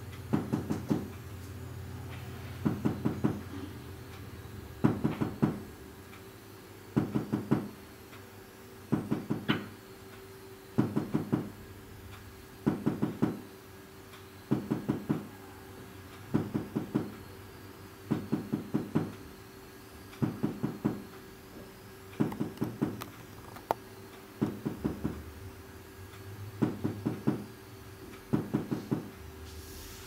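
Short bursts of rapid knocking, about four to six knocks each, repeating roughly every two seconds, over a steady low hum.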